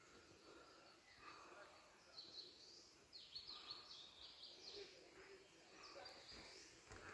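Near-quiet forest with a small bird's faint, short high chirps in a quick series about two to five seconds in.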